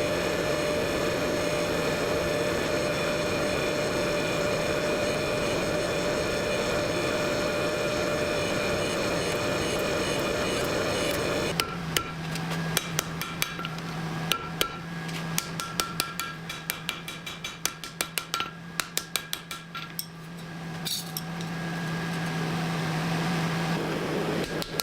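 A steady, loud mechanical running noise for about the first eleven seconds, then a hammer striking steel over and over, several blows a second.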